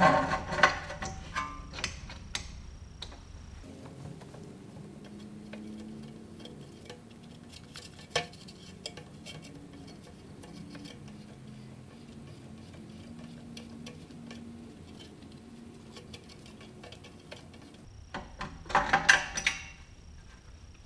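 Faint metallic ticks and clicks from a piston compressor tool being worked against a brake caliper, with one sharper click about eight seconds in, over soft background music.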